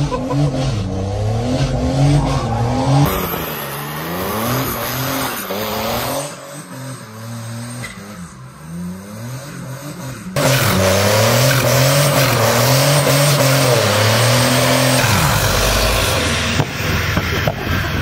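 Van engine revving up and down over and over during a burnout, its tires spinning and squealing in thick smoke. The sound changes abruptly a few times, about three, six and ten seconds in, each stretch holding the same rising and falling engine note.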